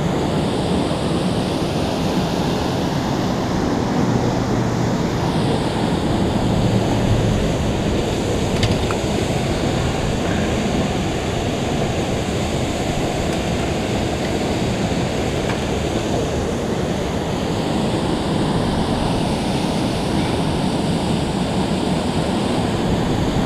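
Steady rush of river water pouring through a low dam's spillway gates and churning below them.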